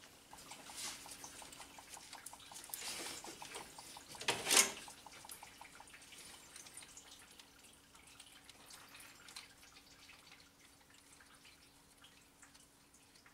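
Engine coolant dripping and trickling from the open coolant temperature sensor port into a catch pan, with one louder short burst about four and a half seconds in, then thinning to scattered faint drips.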